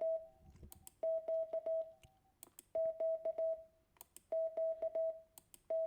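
A Morse code tone sending the letter Q (dah-dah-di-dah) again and again, one group about every second and a half. It is a single steady mid-pitched beep keyed on and off, with a faint click at each key-down and key-up.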